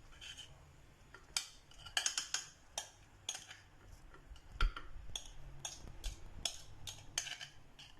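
Kitchen utensils and dishes clinking: a scattered string of light, sharp taps and clicks, with one firmer knock a little past the middle.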